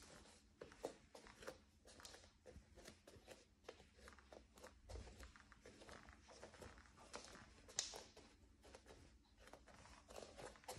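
Bare feet stepping slowly across a wooden plank floor, the boards giving faint creaks and clicks under the steps, with one sharper, higher creak about three quarters of the way through.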